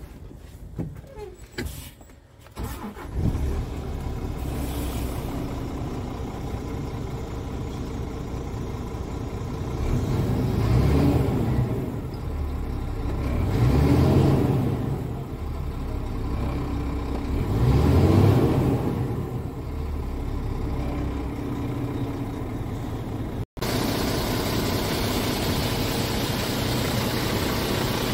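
Scania R450's 13-litre inline-six diesel starting about three seconds in, then idling and revved three times, each rev rising and falling back, heard inside the cab. Near the end the idling engine is heard from outside the truck.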